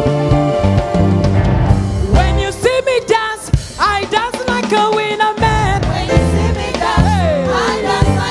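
Live gospel worship band playing an upbeat dance groove with drums and bass guitar. From about two seconds in, a wordless vocal line glides and bends over the beat.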